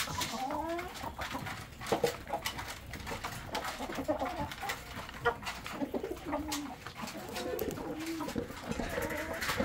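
Domestic chickens clucking softly in short, low, bending calls while they feed, with scattered small clicks from pecking grain off the floor.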